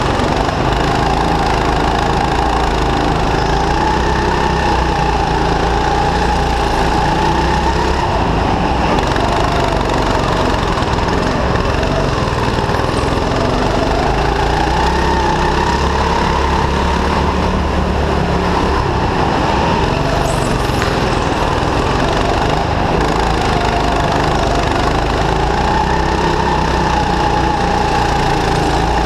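Go-kart's small engine running at speed, heard from on board, its pitch rising and falling several times as the kart speeds up and slows.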